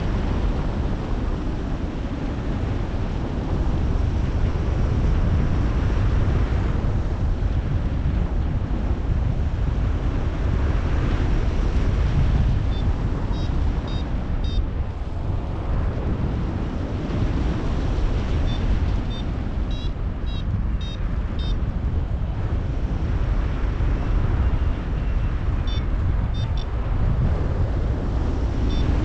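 Strong wind buffeting the microphone as a loud, steady rumbling rush. Runs of short, high electronic beeps sound over it several times, from about halfway through.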